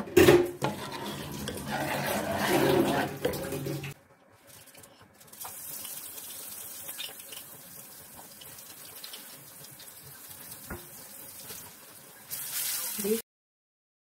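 A spoon stirs thick, wet blended saag in a steel pot, with sloshing and scraping, for about four seconds. Then comes a quieter, steady sizzle of garlic frying in oil in a pan, a short louder burst near the end, and a sudden cut to silence.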